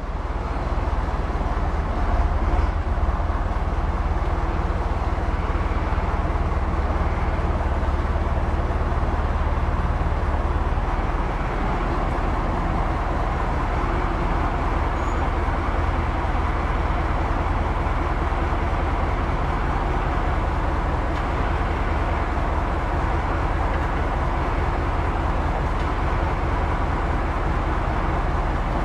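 Tractor diesel engine running close by while the tractor reverses up to a rear ballast weight on its stand. It is a steady, deep engine sound whose low rumble eases a little about eleven seconds in.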